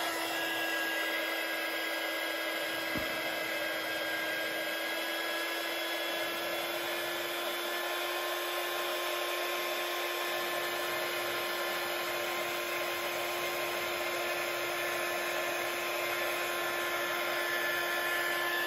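Handheld electric heat gun running steadily, a rush of blown air with a steady pitched hum under it, heating a Kydex holster to soften it for reshaping.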